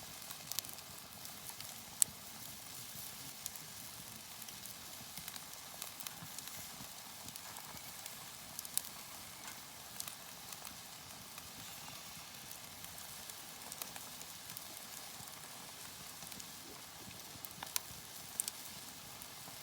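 Wood campfire crackling: scattered sharp pops over a steady hiss.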